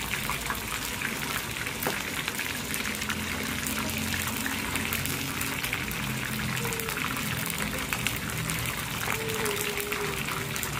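Slabs of pork belly sizzling steadily in hot oil in a frying pan, with a dense spattering crackle.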